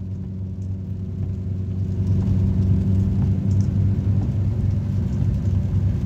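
A steady low mechanical hum and rumble.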